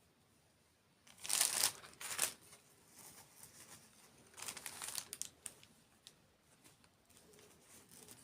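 Close-up crinkling and rustling of food packaging in several bursts, the loudest a little after a second in, another near two seconds and a longer one around five seconds, with small clicks between.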